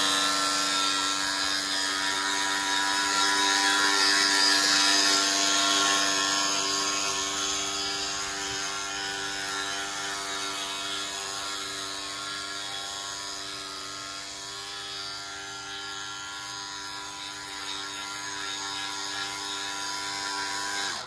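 Small electric motor of a radio-controlled boat running at a steady whine. It fades as the boat moves away, then swells slightly near the end.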